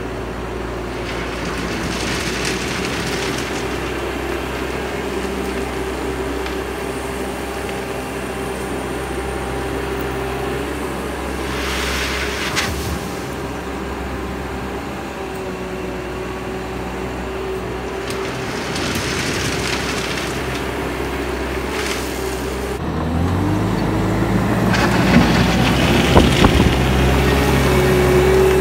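Bobcat T650 compact track loader's diesel engine running steadily, with brief bursts of hiss now and then. About 23 seconds in the engine revs up and gets louder, and gravel crunches and clicks under the tracks and bucket near the end.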